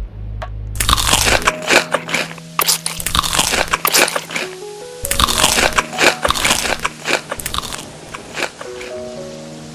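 Crunchy food being bitten and chewed close to the microphone, in two spells of dense crunching that taper off near the end, over background music with held notes.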